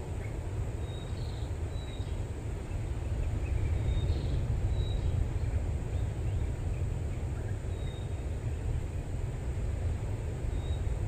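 Outdoor rural ambience: a steady low rumble of wind on the microphone, with short high bird chirps every couple of seconds.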